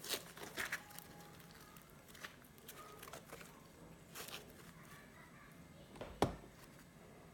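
Fluffy butter slime mixed with modelling clay being handled and squished by hand, giving scattered soft clicks and small pops, the loudest a little after six seconds in.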